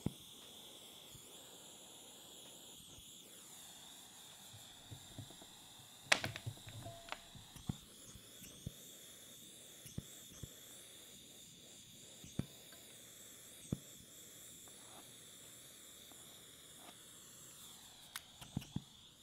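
Pen-style butane torch flame hissing steadily and faintly as it shrinks adhesive-lined heat shrink over a soldered wire joint. Scattered light clicks and taps, the loudest about six seconds in.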